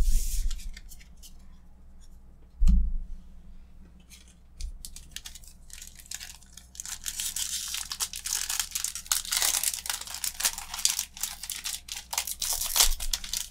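A foil Magic: The Gathering booster pack wrapper crinkling and being torn open by hand, a dense crackle from about halfway through. Before that come a few light clicks of cards being handled and one thump about three seconds in.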